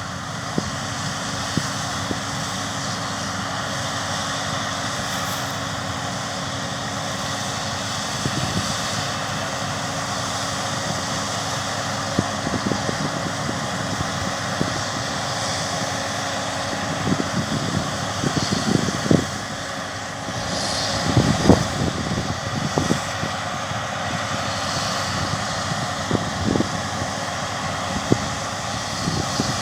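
Massey Ferguson Cerea 7278 combine harvester running steadily at work, a constant mechanical drone heard from a distance. Wind buffets the microphone in gusts about two-thirds of the way through.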